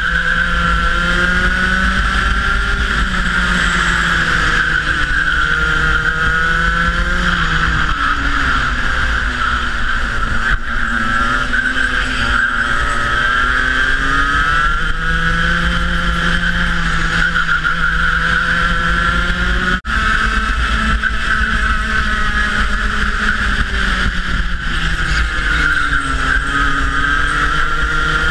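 Rotax Max 125cc two-stroke kart engine at racing revs, heard onboard. Its note falls twice as the kart slows for corners and climbs again as it accelerates out. The sound cuts out for an instant about twenty seconds in.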